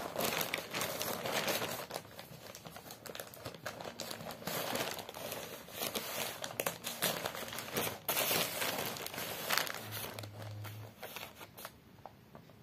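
Plastic courier mailer bag crinkling and rustling as it is handled, with many sharp crackles; the sound starts abruptly and dies away near the end.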